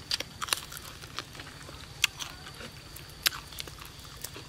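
Close-up sounds of a person eating roasted bird meat by hand: chewing, with a handful of short, sharp crunches and clicks as meat is bitten and pulled off small bones, the sharpest about two seconds and just past three seconds in.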